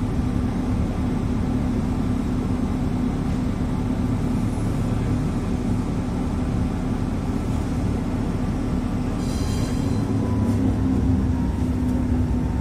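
Inside a Tatra T3SUCS tram standing at a signal: the steady hum of its onboard electrical equipment, with a brief high whine about nine seconds in and a faint steady tone joining as the tram begins to pull away near the end.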